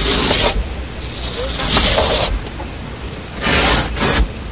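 Zippers on the canvas window covers of a pop-up truck camper being pulled open in three quick strokes, with the fabric flaps rustling as they are peeled down.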